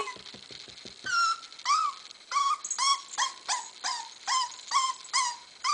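A seven-week-old puppy whimpering in a series of short, high-pitched whines, about two a second, starting about a second in, as it hesitates at the top of a flight of stairs it is trying to go down.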